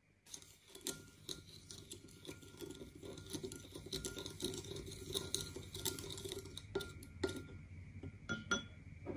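A wooden spoon stirring milk with sugar and salt in a glass bowl: quick, continuous knocking and scraping against the glass, with two sharper clicks near the end.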